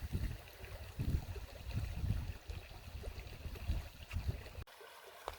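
River water running steadily, with irregular low rumbles over it. Near the end the rumbles stop abruptly and only the quieter running water remains.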